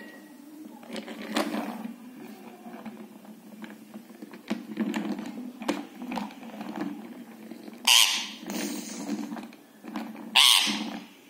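Pet rose-ringed parakeet fussing with a plastic wheeled toy: scattered light clicks and taps of beak and toy on plastic, with two loud harsh, noisy bursts about eight and ten seconds in.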